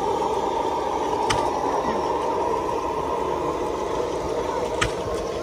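Background babble of a crowd of people talking, with two sharp clicks, one about a second in and one near the end.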